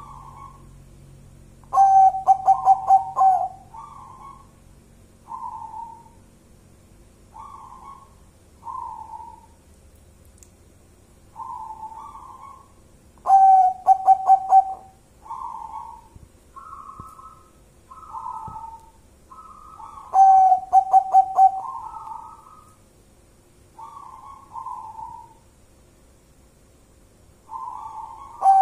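Zebra dove (perkutut) cooing. Three loud phrases, each a rapid run of about five staccato coos lasting about a second, come at spaced intervals. Softer single coo notes fill the gaps between them.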